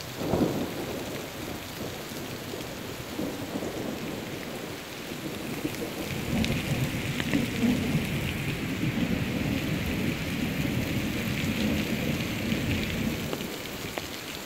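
Heavy rain falling steadily, with thunder rumbling over it. A rumble breaks out right at the start, and a longer one swells from about five seconds in and dies away near the end.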